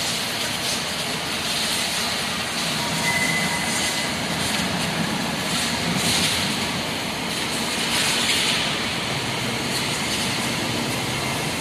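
Steady din of heavy machining equipment in a workshop, a low rumble under a hiss that swells now and then, with a brief high whine about three seconds in.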